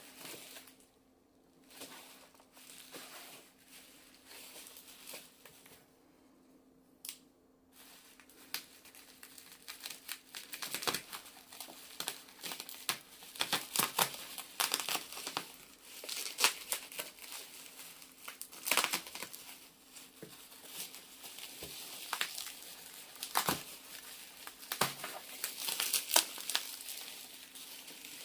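Packaging being unwrapped by hand: plastic and paper wrapping crinkling and tearing, with irregular sharp crackles and clicks. It is sparse at first and gets busier and louder about a third of the way in.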